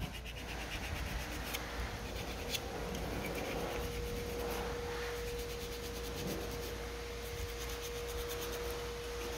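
Steady hum with a single held mid-pitched tone, over a low rumble and a few faint clicks.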